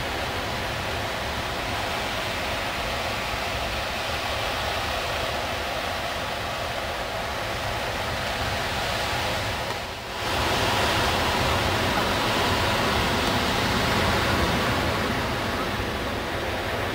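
Steady rush of sea surf breaking on the beach. It dips briefly about ten seconds in and comes back a little louder.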